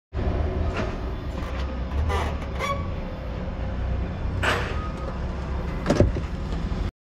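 Steady low rumble of an idling motor vehicle, with a few short clicks and a brief sharp sound about six seconds in.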